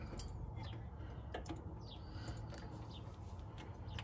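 Faint scattered clicks and ticks of a tool and hands working the carburetor's idle adjustment on a switched-off engine. A few short bird chirps sound in the background.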